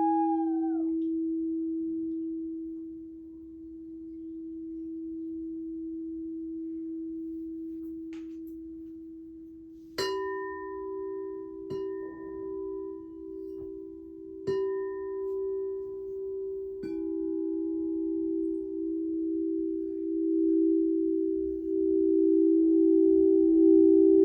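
Singing bowls ringing. A steady low hum sounds throughout, and a higher held note slides down and stops within the first second. From about ten seconds in, a bowl is struck about four times, and its ringing tones overlap and waver in slow pulses.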